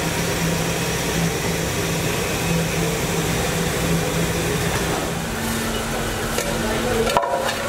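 Workshop machinery running steadily: a low hum over a constant hiss, the hum shifting to a slightly higher pitch about five and a half seconds in.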